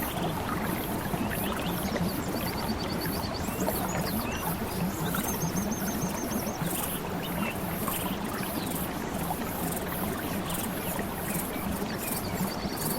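Steady running water, like a stream, with bird chirps and a few short rapid trills over it.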